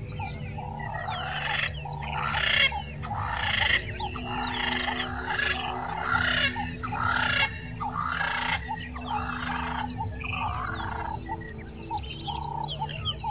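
Animal calls that sound like a frog chorus: croaking pulses repeat about once a second, with bird chirps above them and a steady low hum underneath.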